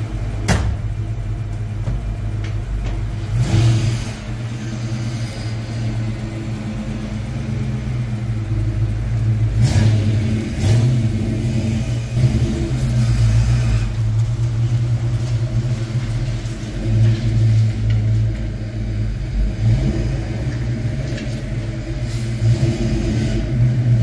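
Fox-body Ford Mustang's engine running as the car pulls out of its parking spot and drives away, with a few brief rises in engine speed. A sharp knock about half a second in.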